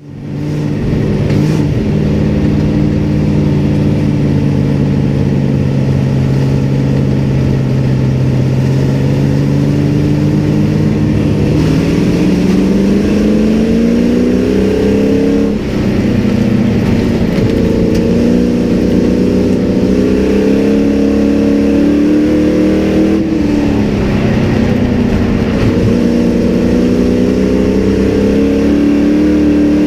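Sport truck race engine heard from inside the cab. It holds steady at low revs for about ten seconds, then revs climb, drop off sharply twice and climb again, as the driver gets on and off the throttle.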